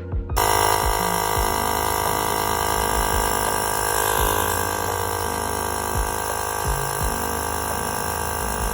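ALTOCRAFT cordless portable tire inflator's air compressor switching on just after the start and running steadily and loudly.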